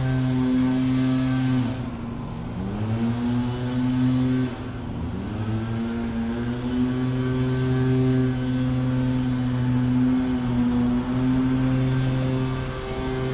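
An engine running at a steady pitch, dropping and climbing back up twice within the first few seconds, as when a motor vehicle revs up again after easing off.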